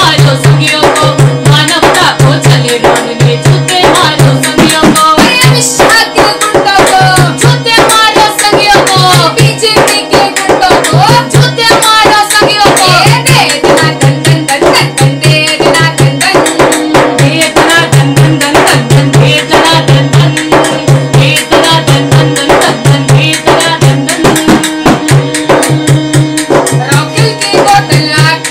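Women singing a protest song to harmonium and a large hand-beaten drum. The drum keeps a steady, even beat under the harmonium's held chords.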